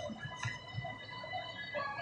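A utensil stirring pierogies in a plastic bowl: soft scuffs and one light click about half a second in, over a faint steady whine.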